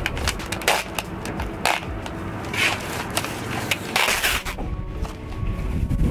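Duct tape being pulled off its roll in several short, noisy tearing pulls, the longest about four seconds in, as strips are stuck onto the house wrap.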